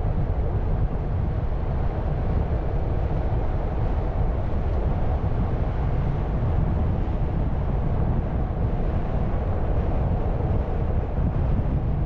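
Steady rumble of a car driving on a rough, unsealed gravel road bed, heard from inside the car: tyre and engine noise, heaviest in the low end, with no breaks or distinct events.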